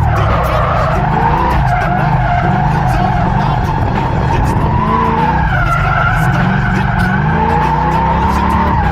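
Car engine at speed on a race track, revving up and down in pitch through gear changes and under heavy throttle.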